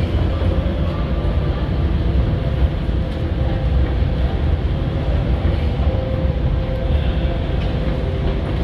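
Steady low rumble with a faint, on-and-off whine above it.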